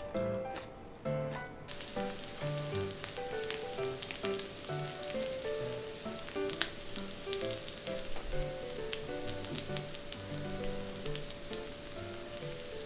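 Pork belly sizzling on a ridged grill pan, a steady hiss with frequent small pops, starting about two seconds in, over light background music.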